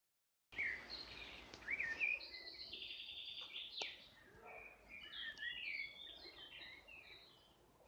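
Small songbirds chirping and trilling, many short quick notes overlapping, with a single sharp click a little before the middle.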